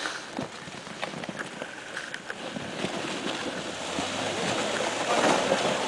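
Ford Explorer SUV coming slowly down an icy, snow-covered track toward the microphone; its engine and tyres grow louder toward the end. There is wind on the microphone and scattered crunches of snow underfoot.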